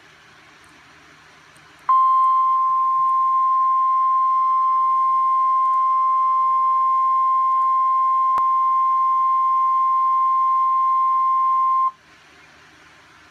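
Weather-radio warning alarm tone: one steady, loud, high-pitched tone of about 1050 Hz, which starts about two seconds in, holds for about ten seconds and cuts off suddenly, over faint radio hiss. It signals that a severe thunderstorm warning is about to be broadcast.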